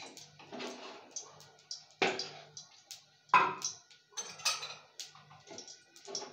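Kitchen clatter: a string of irregular knocks and clinks of metal utensils around a steel wok on a gas stove, the loudest about three seconds in.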